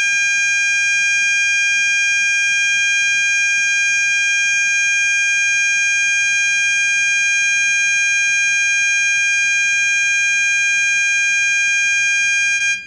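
Gentex GOS-24-15/75WR horn strobe sounding its 800 Hz continuous tone on high volume: one loud, steady, unbroken tone that cuts off suddenly near the end.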